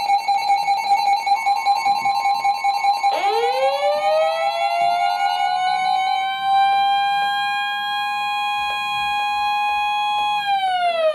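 Emergency alert tones: a steady single tone near 1050 Hz, the NOAA Weather Radio attention signal that announces a warning, sounds under a siren. The siren warbles at first, winds up about three seconds in, holds a steady pitch, and winds down at the end.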